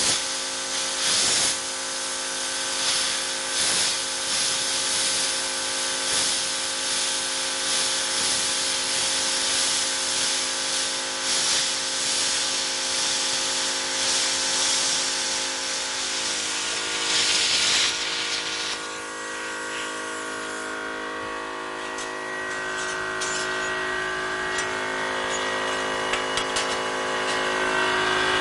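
Lotos LTPDC2000D plasma cutter torch cutting 1/8-inch steel plate: a steady hiss of the arc and air, over a steady machine hum. The cutting hiss stops after about eighteen seconds, leaving the hum.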